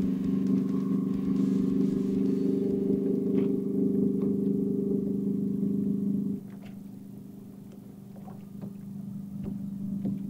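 Electric trolling motor on the bow of a bass boat running with a steady hum; about six seconds in it drops off sharply, then comes back up near the end. A few light ticks on top.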